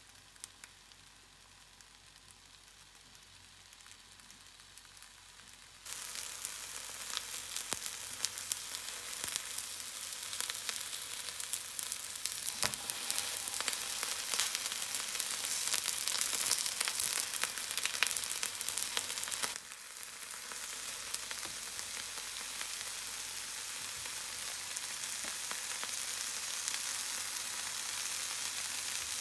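Thick new-onion rounds sizzling in a little oil in a nonstick frying pan. The sizzle is faint at first, jumps louder about six seconds in with a dense crackle, and drops back a little to a steady hiss about twenty seconds in.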